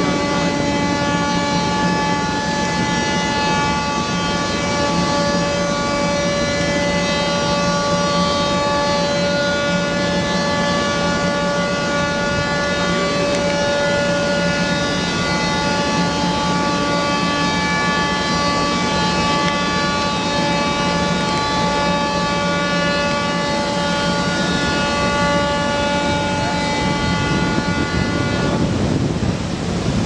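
Several ships' horns sounding together in one long held blast, a steady chord of tones that cuts off about a second before the end.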